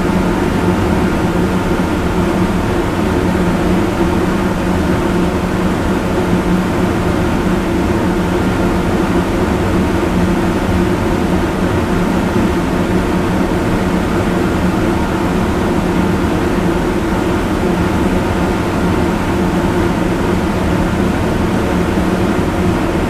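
Fan running steadily at high speed: a loud, even rush of air with a low hum underneath.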